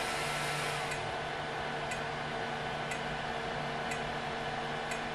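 Zonestar Z8PM4 Pro 3D printer's fans running steadily with a faint tick about once a second as its shutdown countdown runs down after a finished print. A faint whine dies away about a second in.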